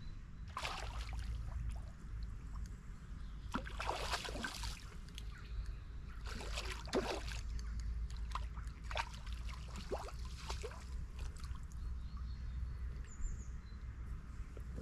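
Water splashing in short bursts as a hooked barbel thrashes at the surface and is drawn into a landing net, the biggest splashes about four and seven seconds in, over a steady low rumble.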